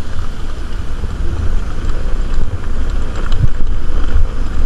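Heavy wind rumble on the microphone of a moving scooter, over its engine and road noise.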